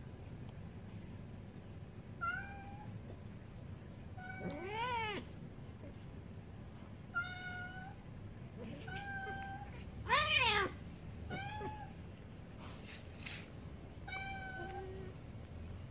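A cat meowing during play-wrestling: about seven short, high mews. Two of them, about five and ten seconds in, are longer meows that rise and fall in pitch, and the second is the loudest.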